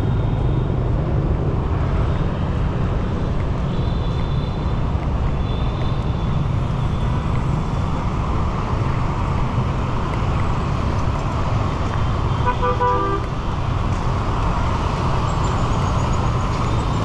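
Street traffic in the city: a steady rumble of passing vehicles, with a short horn toot about three-quarters of the way through.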